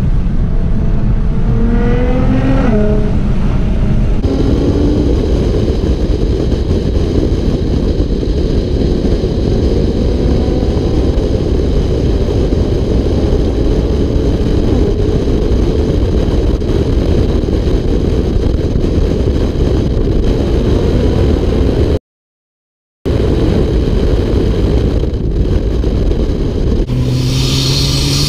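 Nissan R35 GT-R's twin-turbo V6 with a full HKS exhaust under hard acceleration, its engine note rising through the revs near the start and again near the end over a heavy rumble. The sound cuts out for about a second about three-quarters through.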